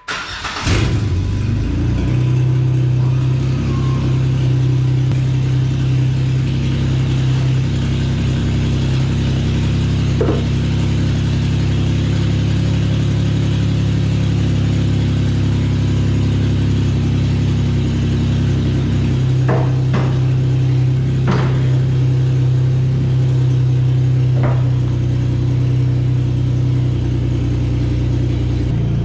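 Jeep Wrangler engine starting up and then idling steadily, with a few short clicks or knocks in the second half.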